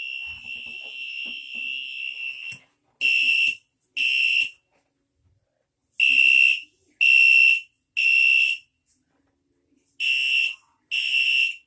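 Fire alarm sounder giving a loud, steady, high-pitched tone that cuts off about two and a half seconds in. It then changes to the temporal-three evacuation pattern: half-second blasts in groups of three, one a second, with a longer pause between groups.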